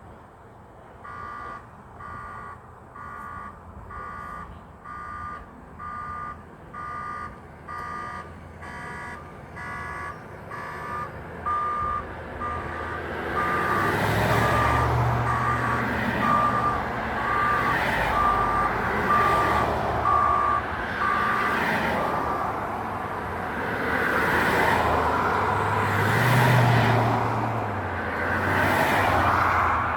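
Work vehicle's reversing alarm beeping about once a second, the beeps stopping about three-quarters of the way through. From about halfway, heavy engine noise and road noise grow louder and swell twice.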